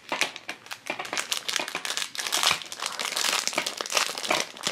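Clear plastic blind-bag packaging crinkling and crackling as hands handle and squeeze it, a dense, irregular run of crackles.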